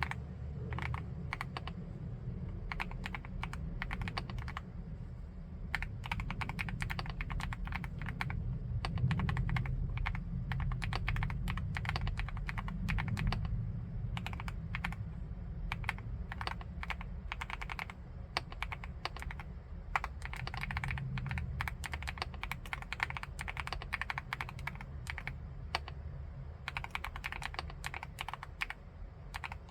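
Continuous fast typing on a full-aluminium 75%-layout keyboard: a dense run of key clicks and bottom-outs with short pauses between bursts.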